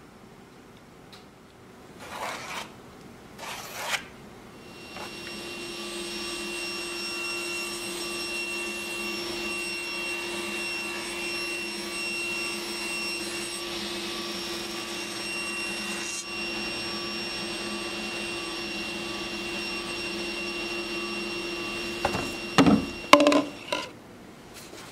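Table saw running steadily while a cypress slab is pushed through it on a crosscut sled, a constant whine with the hiss of the cut for most of the stretch. A few short handling noises come about two to four seconds in, and a cluster of knocks and clatter comes near the end.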